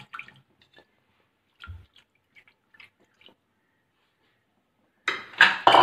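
Raw beef cubes sliding from a bowl into water in an aluminium pressure cooker: faint wet plops, squelches and drips, with a soft thump a little under two seconds in. A louder burst of sound comes near the end.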